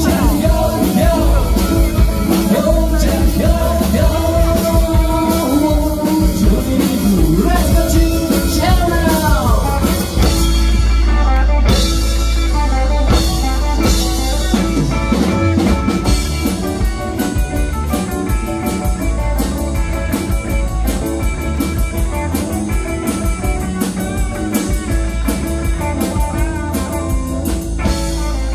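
Live rock band playing: a male singer over electric guitar and drums. The vocal ends with a falling slide about ten seconds in, and the band carries on instrumentally with a steady beat.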